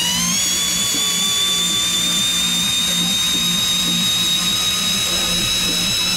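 Protool DRC 12-4 cordless drill-driver's motor running at high speed, its whine settling to a steady pitch just after the start, over background music with a regular beat.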